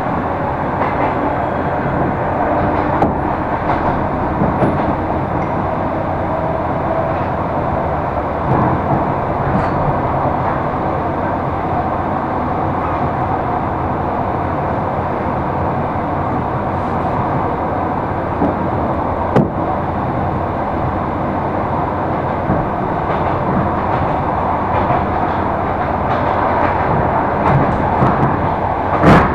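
Suburban electric train running at speed, heard from inside the carriage: a steady noise of wheels on rails, broken by a few sharp knocks, the loudest near the end.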